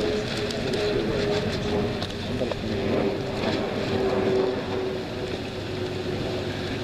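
Camera drone's propellers humming steadily over open air, the pitch sagging a little as it goes.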